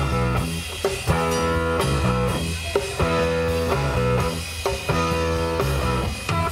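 Live blues-rock band playing: electric guitar and electric bass on a repeating riff over a drum kit.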